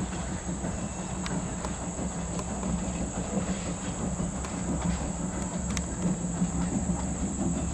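Strasburg Rail Road steam passenger train rolling on the track: a steady low rumble with occasional sharp clicks of wheels over rail joints. A steady high buzz runs underneath.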